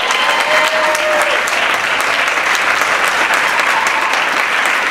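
A roomful of banquet guests applauding steadily, with one voice calling out over the clapping for the first second or so.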